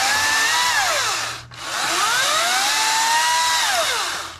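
Ryobi 40V brushless cordless chainsaw running in two bursts. Each time its electric motor spins up fast with a rising whine, holds, then winds down, with a short stop about a second and a half in.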